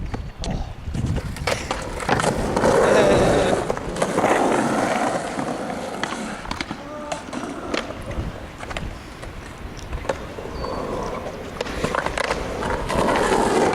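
Skateboard wheels rolling over pavement, with sharp clacks of the board's tail and deck striking the ground scattered throughout.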